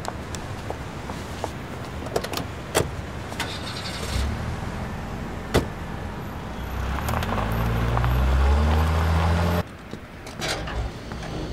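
A few sharp clicks and knocks, then a car engine running and revving up, its pitch climbing as the car pulls away. The engine sound cuts off suddenly about two seconds before the end.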